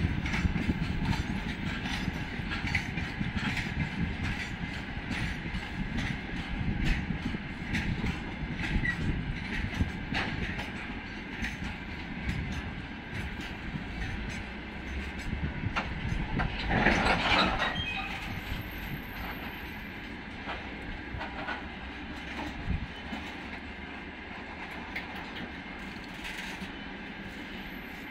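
Freight train of open gondola cars and covered hopper cars rolling past, its wheels clicking over the rail joints. There is a louder burst of noise lasting about a second some two-thirds of the way in, and the sound is quieter in the last third.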